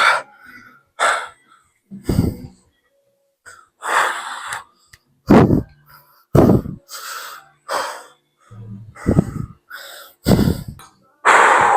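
A man breathing hard and loudly close to the microphone, a string of heavy, rasping breaths in and out about once a second, the sound of being out of breath from calisthenics exercise.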